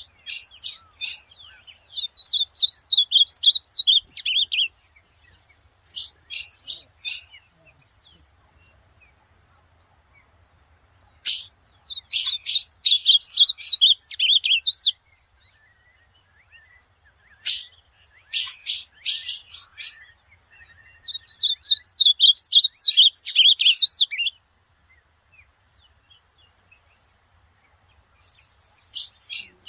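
Ultramarine grosbeak (azulão) singing: several short warbling song phrases, each opening with a few sharp high notes, separated by pauses of a few seconds.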